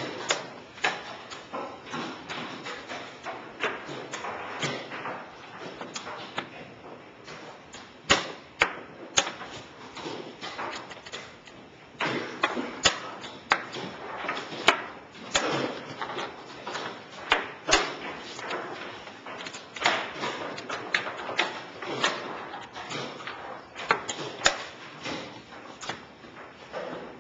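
Chess pieces being set down on a board, irregular sharp knocks, several close together, over a low room murmur.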